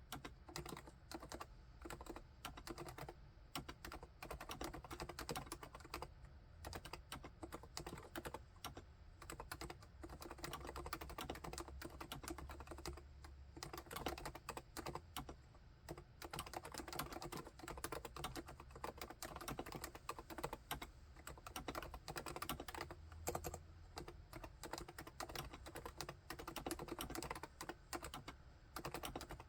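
Continuous typing on a full-size Realforce XF11TS keyboard with silent Topre electrostatic capacitive switches and HiPro Renso keycaps: a steady stream of many keystrokes a second.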